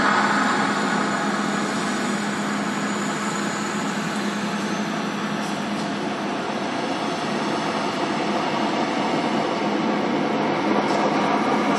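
Rail grinding train working the track: a steady, dense grinding noise with a constant low hum under it, growing a little louder near the end.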